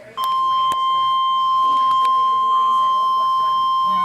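Emergency Alert System attention tone: a single loud, steady, unbroken tone that starts about a quarter of a second in, signalling a severe thunderstorm warning.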